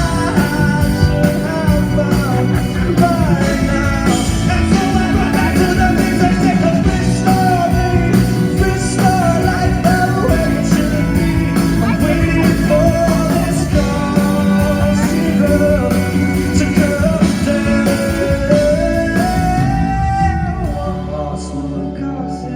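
Live pop-rock performance: a male lead vocal sung over a rock band with guitar, easing a little in loudness near the end.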